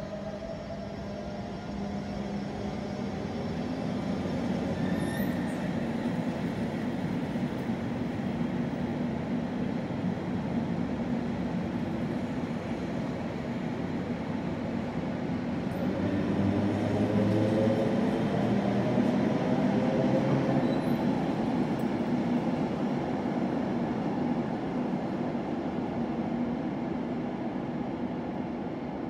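SNCB electric multiple-unit train pulling out of an underground platform. Wheels rumble on the rails and the traction motors whine, rising in pitch near the start and again about halfway through, when the train is loudest, then easing as it draws away.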